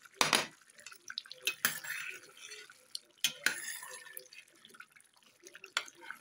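A metal spoon clinking against a stainless steel pot while stirring pieces of fried fish into a thick tomato stew, with wet stirring sounds in between. A handful of sharp clinks, the loudest just after the start.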